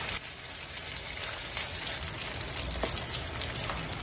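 Egg rolls deep-frying in vegetable oil: a steady sizzle with fine crackling.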